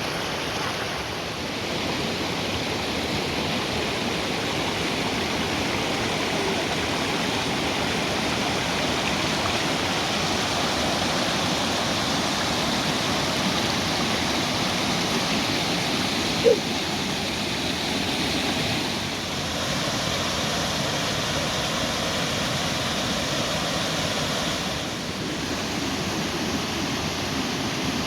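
Waterfall: a steady rush of falling water, with one brief squeak-like blip a little past halfway.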